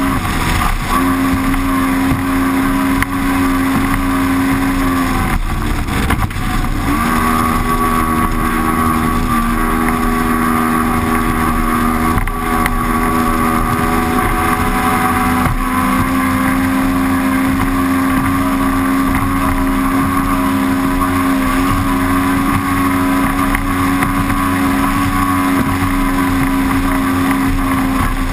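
Mercury Optimax Pro XS 200 two-stroke V6 outboard running hard at racing speed, with wind and spray rushing past. The engine note drops and climbs back about six seconds in, then holds steady.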